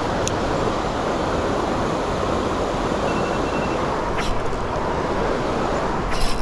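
Creek water rushing steadily through strong current at a low dam, with two brief clicks, one early on and one about four seconds in.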